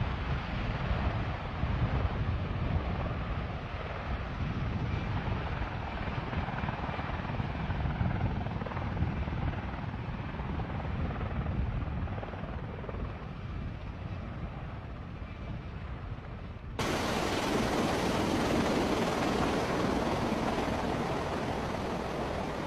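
V-22 Osprey tiltrotor's rotors and engines running, a steady low rumble. About three quarters of the way through, it cuts abruptly to a different recording of the aircraft noise, louder and hissier.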